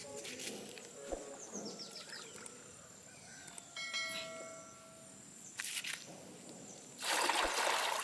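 Water being scooped from a shallow stream with a calabash and poured into a plastic basin: soft sloshing and dipping, then a louder splashing pour near the end. A short chime sounds about halfway through.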